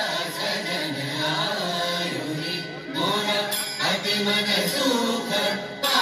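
A song with a singer over instrumental backing, played through the hall's loudspeakers.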